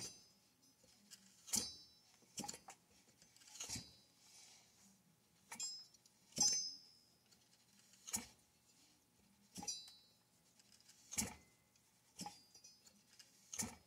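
Light, sharp metallic clinks and clicks, about a dozen at uneven intervals, from metal parts being handled and fitted on a chainsaw powerhead during assembly.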